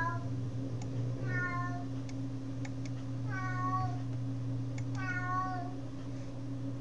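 An animal's short pitched cries, four of them about every second and a half, over a steady low hum, with a few faint mouse clicks in between.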